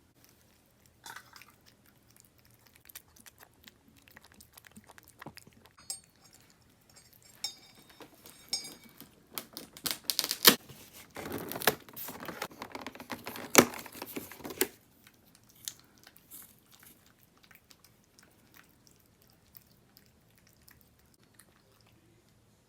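Packaging being handled and opened by hand: scattered taps and rustles, then about five seconds of loud ripping and crinkling near the middle, then quieter handling clicks.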